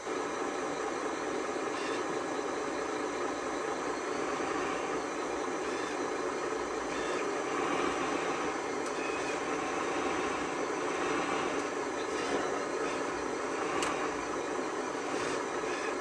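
Radio-controlled model bulldozer and truck running: a steady mechanical whirr from their motors and gearing, with a few faint clicks.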